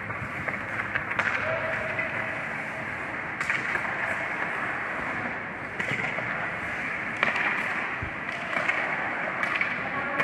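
Ice hockey skates scraping across rink ice, with several sharp clacks of sticks and puck.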